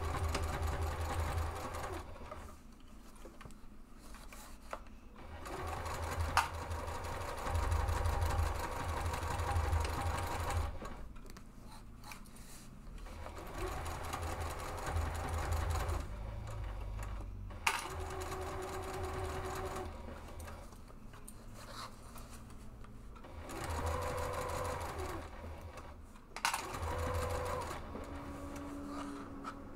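Domestic sewing machine stitching slowly in short runs, stopping and starting several times, with a few sharp clicks between runs.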